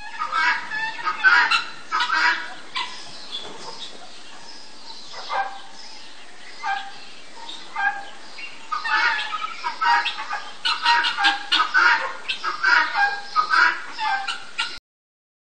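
Peacock calling repeatedly: many short, loud calls in quick runs over a hissy recording background, sparse through the middle and densest in the second half, cutting off abruptly near the end.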